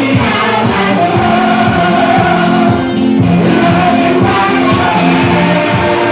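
Gospel worship song: voices singing together over instruments with a steady beat.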